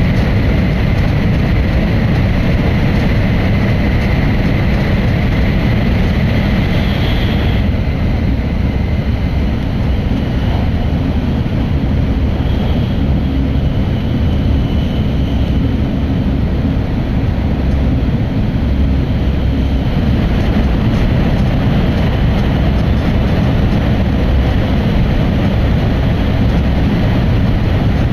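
Steady low rumble of a Hokkaido Shinkansen train running at speed, heard inside the passenger car. A faint high whine fades out about seven seconds in.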